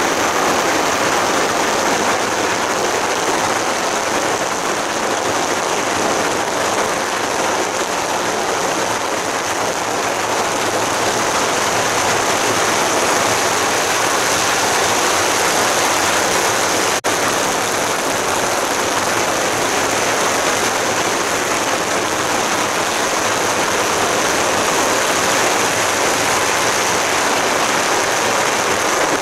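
Strings of firecrackers going off in a dense, continuous crackle, loud and unbroken, with a brief break about seventeen seconds in.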